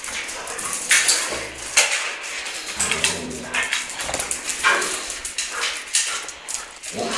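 Siberian huskies making play sounds: a run of short, irregular huffs and grumbles, with a brief higher whine near the end.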